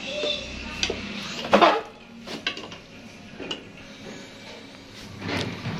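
Ladle scraping and knocking against the inside of an aluminium pressure cooker while a thick curry is stirred: a handful of separate clinks and scrapes, the loudest about one and a half seconds in.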